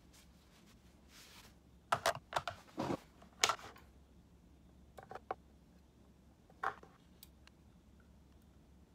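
Hard plastic ink-supply cartridges being handled, clicked together and set down on a workbench: a close run of sharp clicks and knocks about two to three and a half seconds in, a few more around five seconds and one near seven, over a low steady hum.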